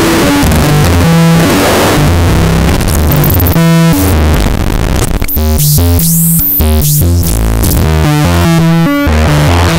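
Schlappi Engineering 100 Grit eurorack feedback-distortion module played through a modular synthesizer: loud, gritty noise and stepping pitched tones over a changing bass line. Near the middle come high, arcing squeals of feedback as the module's touch points and knobs are worked.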